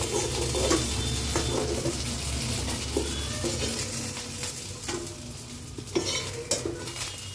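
Small fish pieces sizzling in hot oil in a kadhai, with a metal spatula scraping and clinking against the pan as the fried pieces are lifted out onto a steel plate.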